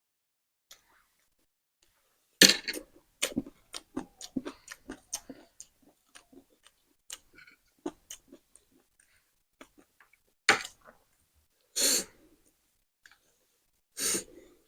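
Close-up eating of spicy noodles: chewing, slurping and wet mouth clicks. Four louder breathy bursts stand out, the first about two and a half seconds in and the rest near the end.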